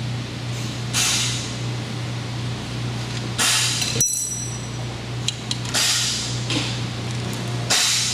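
Hand tools working the bolts out of a Prep/Master Jr. grinder's head: short metallic rasps of a ratchet wrench about every two seconds, with a few light ticks, over a steady low hum.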